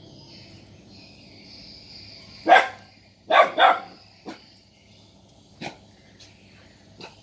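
Dogs barking in alarm at a stranger: three loud barks between about two and a half and four seconds in, the last two close together, then a few softer short barks. A steady high buzz of insects runs underneath.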